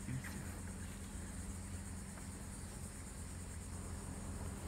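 Steady high insect drone, with a low steady hum underneath.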